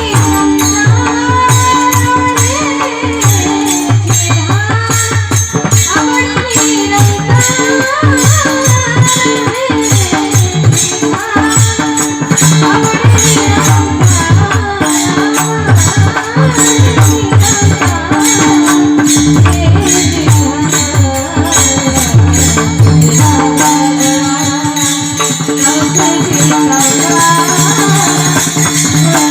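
Marathi devotional bhajan music: a wavering melody over a steady held drone note, with a hand drum and a fast, even metallic jingle keeping the beat.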